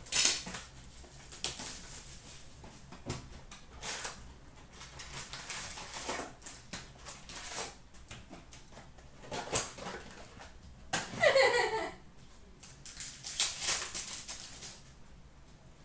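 Foil wrappers of hockey card packs crinkling and tearing as packs are pulled from a cardboard retail box and ripped open, in short irregular rustling bursts. A brief falling squeak sounds about eleven seconds in.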